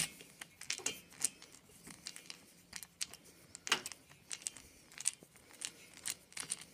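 An 11 mm socket driver unscrewing a cylinder head nut on a Vespa PX 150 engine: irregular small metal clicks and short scrapes as the socket and handle are turned and re-gripped.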